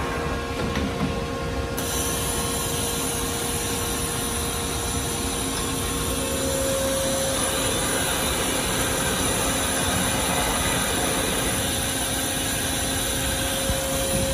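Steady hum and whine of running shop machinery, with fixed tones under an even noise. A high hiss comes in about two seconds in, and one of the hum tones steps slightly higher around six seconds in.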